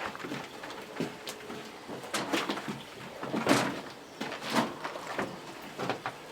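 Irregular footsteps, scuffs and knocks, a sharp one every half second to second, in an echoing room.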